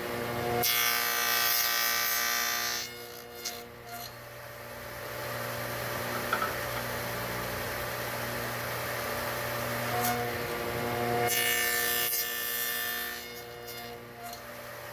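A table saw running steadily, cutting through a wooden board twice, each cut lasting about two seconds: slot cuts for a wooden finger-joint hinge.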